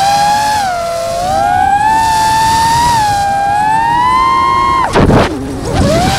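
FPV racing-style drone's electric motors and propellers whining at high speed. The pitch rises and falls with the throttle. About five seconds in it drops sharply, a short rush of air noise follows, and then the whine picks back up.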